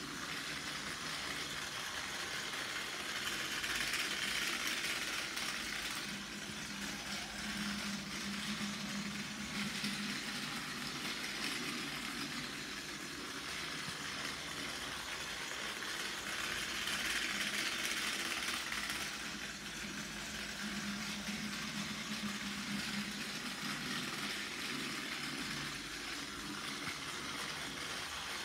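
Battery-powered Plarail C61 20 toy steam locomotive running laps on plastic track: a steady whirr of its small motor and gears, rising and falling about every thirteen seconds as it circles.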